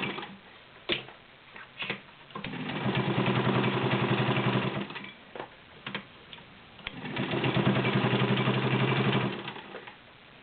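White Selectronic 804 sewing machine, with its 1.6 amp motor, stitching through 8 layers of thick cotton upholstery fabric. It sews in two runs of about two seconds each, a fast stitch rattle over a steady motor hum, with a few sharp clicks while it is stopped.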